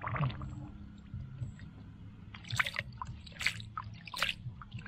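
Shallow water splashing and sloshing as hands work in it, with a short splash at the start and several more in the second half.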